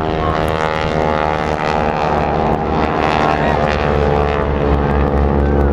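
Engines and propellers of two aerobatic display aircraft droning overhead, the pitch falling slowly as they pass.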